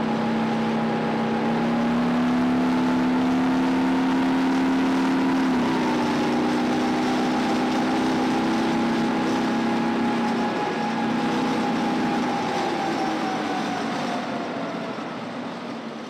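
Type 90 tank under way, heard from on board: its ten-cylinder two-stroke diesel engine and drivetrain running with a steady whine. The whine shifts down in pitch about five seconds in and fades near the end.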